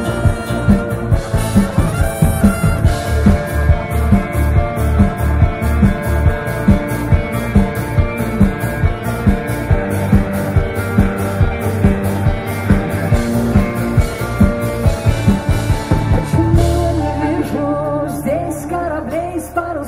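Rock band playing live through a PA: electric guitars, bass and a steady drum beat in an instrumental passage. About sixteen seconds in the drums stop, leaving a held low bass note under a wavering, bending higher line.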